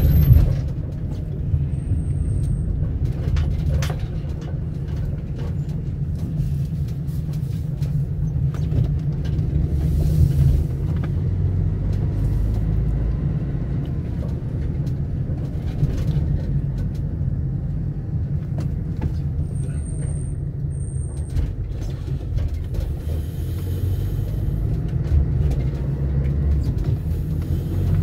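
Steady low rumble of a road vehicle on the move, with scattered light knocks and rattles.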